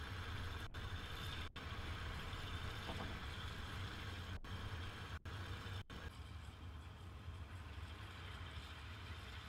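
Homemade wind turbine with a 3 m rotor spinning fast in strong wind: a steady rushing noise over a low rumble, cut off very briefly about five times.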